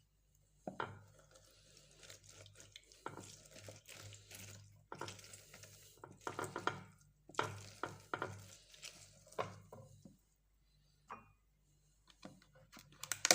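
Citrus halves being pressed and twisted on a citrus juicer: irregular bouts of rubbing and knocking over a low hum, with a quiet spell about ten seconds in.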